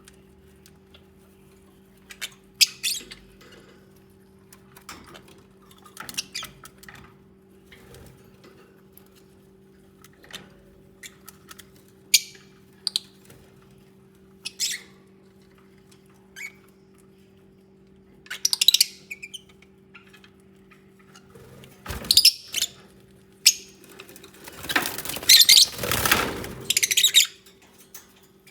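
Lovebirds chirping in short, scattered bursts, with a couple of seconds of louder rustling and fluttering near the end. A faint steady low hum runs underneath.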